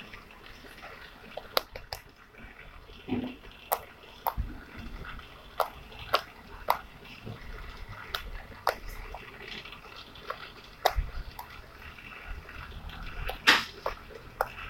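Homemade clear-glue slime being squished and stretched by hand, giving irregular wet clicks and small pops.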